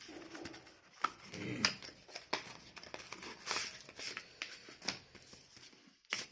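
Packaging being handled: paper and plastic rustling and crinkling with a scatter of short clicks and taps as the box's contents are taken out.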